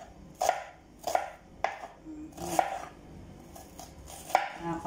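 Kitchen knife chopping a red onion on a wooden cutting board: about six separate cuts, each a sharp knock of the blade against the board.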